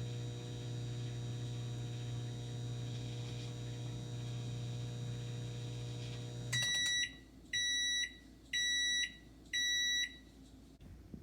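Microwave oven running with a steady hum while heating a cheeseburger, then shutting off and beeping four times, about once a second, to signal the end of the cooking cycle.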